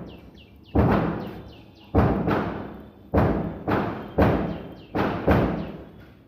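Repeated hammer blows at an uneven pace of about one or two a second, each a sharp knock that rings and dies away.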